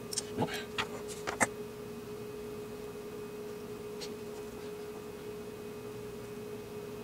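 A steady hum with a clear single tone runs throughout. Over it come a quick cluster of small clicks and taps in the first second and a half, the last one the loudest, and one faint click about four seconds in, from plastic parts and a desoldering gun being picked up and handled.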